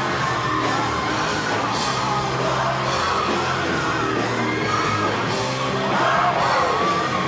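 Live rock band playing amplified in a large hall: electric guitars, bass and drums, with yells over the music.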